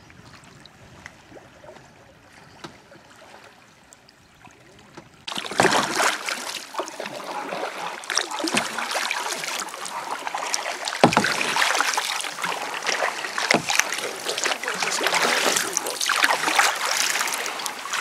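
Canoe on a small river: faint for about five seconds, then a sudden, loud rush of moving, splashing water full of sharp crackles.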